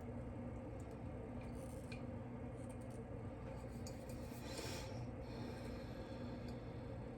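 Light kitchen handling sounds, with a few faint clicks and a brief scrape or rub about four and a half seconds in, over a steady low hum.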